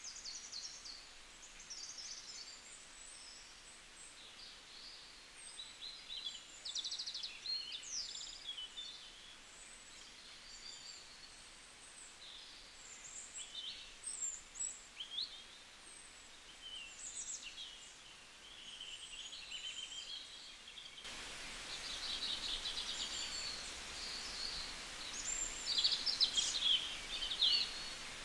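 Small birds chirping and twittering, many short high calls and quick rising and falling whistles coming and going. A steady background hiss grows louder about two-thirds of the way through.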